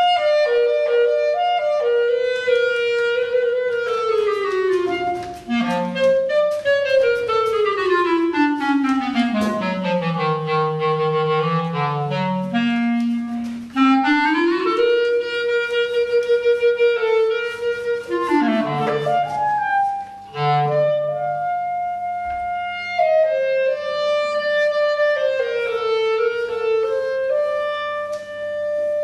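Solo clarinet improvising: a slow, stepwise descent down into the instrument's low register, climbing back up, then a stretch of fast repeated notes and free, wandering phrases in the middle range.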